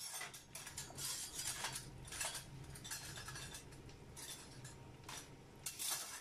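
A spoon stirring payasam of jaggery syrup and coconut milk in a pan, an irregular run of scrapes and clinks against the pan.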